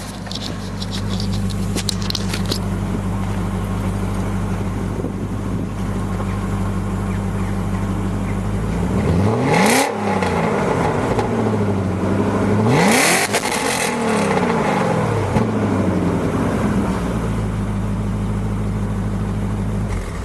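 1998 BMW E39 540i's 4.4-litre M62 V8 idling through a Reuter Motorsport exhaust, blipped twice near the middle, each rev rising and falling back to a steady idle.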